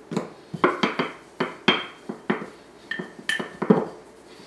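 Wooden rolling pin and hands knocking and clattering on a hard ceramic tile countertop as tart dough is rolled out: about a dozen irregular sharp knocks, several with a brief ring.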